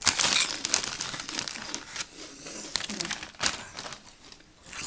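Plastic crisp packet crinkling as it is handled, loudest in the first second and then in scattered crackles.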